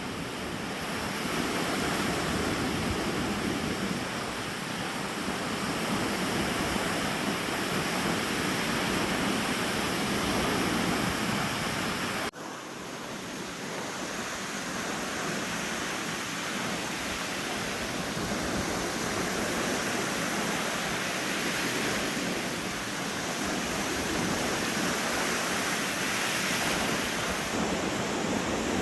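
Lake Huron waves washing onto the beach, mixed with loud wind buffeting the microphone. The sound drops out for an instant about twelve seconds in, then carries on.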